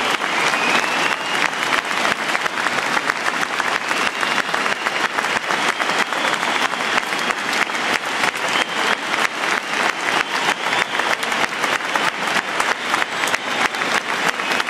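Football stadium crowd applauding: many hands clapping in a dense, steady patter.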